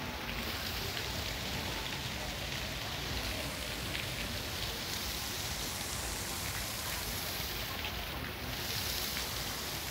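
Water jets of the Monument aux Girondins fountain spraying and splashing into its basin, a steady hiss.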